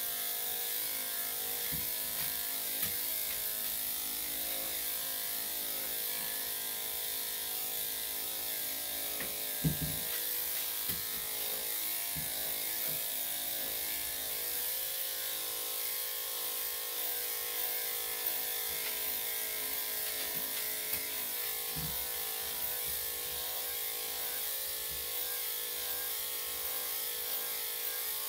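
Electric dog clippers fitted with a #3¾ blade running steadily while shaving a dog's coat: a constant motor hum with blade hiss. There are a few brief low thumps, the loudest about ten seconds in.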